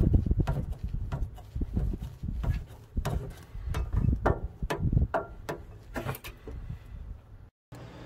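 Irregular clicks, knocks and scrapes of a drain hose fitting being handled at the drain valve under a John Deere 450J bulldozer, over a low rumble. The sound cuts off suddenly near the end.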